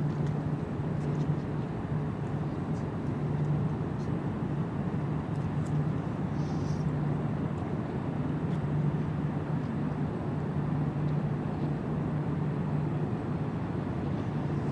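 Steady low drone of ship engines across the water, a constant hum over an even rumble.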